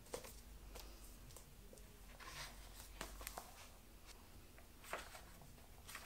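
Faint sounds of books being handled: a few soft taps and knocks as hardcovers are picked up and set down, and brief papery rustles as pages are turned.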